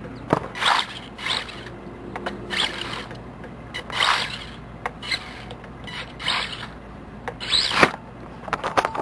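Team Losi Micro Desert Truck's small electric motor and gears whirring in short bursts as the throttle is blipped on and off, about a dozen bursts in nine seconds.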